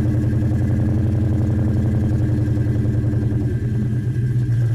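Car engine idling steadily with a deep, even rumble.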